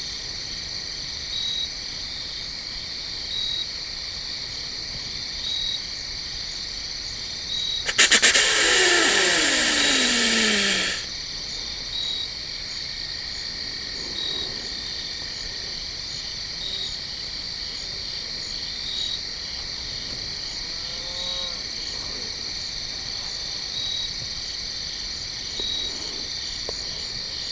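Evening insect chorus of crickets and other insects: a steady high-pitched trill with a short chirp repeating about every two seconds. About eight seconds in, a loud, rasping sound lasting about three seconds falls in pitch across it.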